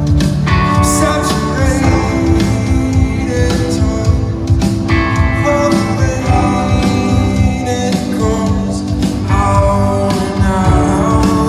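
A live rock band playing in an arena: electric guitar and a full rhythm section, with a singing voice over them.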